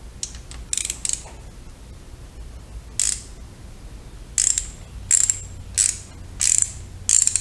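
Socket ratchet clicking in short bursts as it is swung back and forth, loosening the pinch bolt on a motorcycle engine's rear balancer adjuster. There are about seven bursts, spaced out at first, then coming roughly every two-thirds of a second in the second half.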